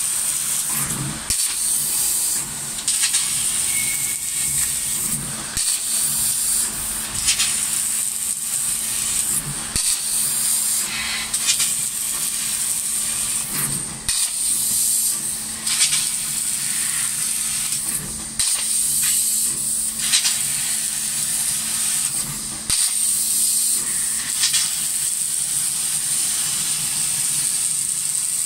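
A 4000 W fiber laser cutting 10 mm metal plate: a steady, loud hiss of assist gas blowing through the cut, with a strong high edge, dipping briefly several times, over a faint steady low hum.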